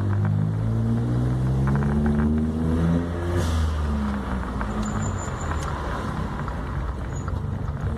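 VW Up 1.0 TSI three-cylinder turbo engine accelerating, rising in pitch for about three seconds. Then a short hiss of the aftermarket blow-off valve venting boost as the throttle closes, and the engine falls back.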